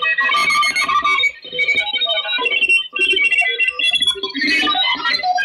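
Music received on a Kenwood TS-440S shortwave transceiver and played through its speaker.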